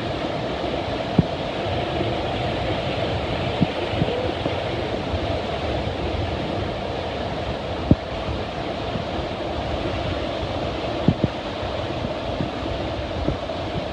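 Waterfall, a steady rush of falling water, with a few brief low thumps over it.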